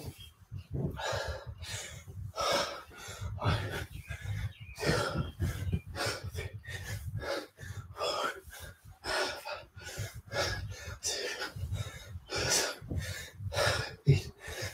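A man breathing hard from the exertion of a kettlebell workout: a steady run of quick, loud breaths in and out.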